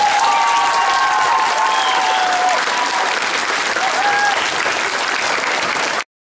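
Audience applauding in a hall, with a few voices cheering over the clapping; it cuts off suddenly near the end.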